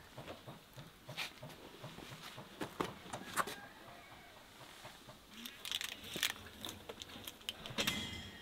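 Clunks and knocks of a wood-fired oven's door being lifted off, then a metal baking pan of bread knocking and scraping as it is slid out over the oven's metal floor, loudest near the end.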